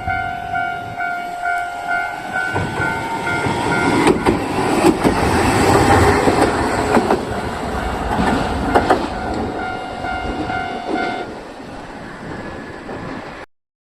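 Japanese railway level crossing alarm ringing in a repeating electronic ding, about two strokes a second, while a train passes over the crossing, loudest midway, with wheels clacking. The alarm stops about eleven seconds in.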